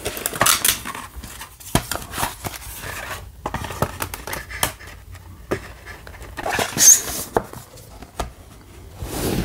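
DVD packaging being handled: irregular clicks, taps and rustles, with the cardboard slipcover swishing as it is slid back over the case, loudest about seven seconds in.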